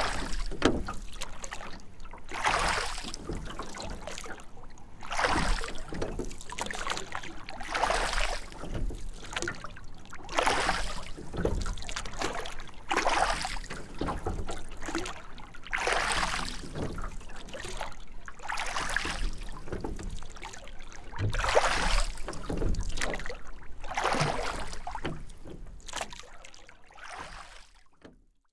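Oars of a rowboat dipping and pulling through the water in a steady rhythm, one splashing stroke about every two and a half to three seconds. The sound fades out near the end.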